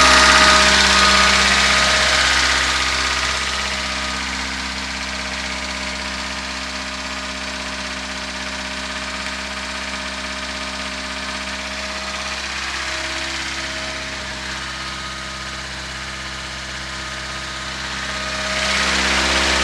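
VAZ-2106 Zhiguli's four-cylinder petrol engine idling steadily after a full rebuild, with a knock that the owner suspects in it. It grows fainter over the first few seconds and louder again near the end.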